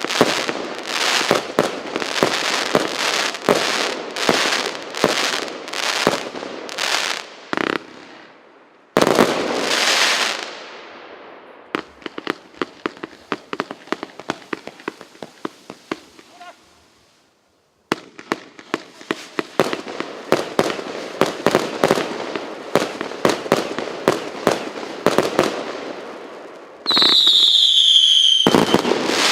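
A 136-shot consumer fireworks battery (Russian Fireworks P8284) firing rapid volleys, sharp bangs in quick succession with bursts and crackle. The sound cuts out briefly about 18 seconds in, then the volleys resume. Near the end a whistling shell gives a falling whistle.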